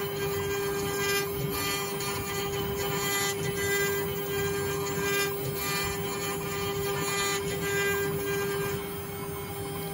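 Woodworking CNC router spindle running with a steady high whine while its bit carves into a block of wood, the cutting noise swelling and fading every second or two as the bit moves through its passes.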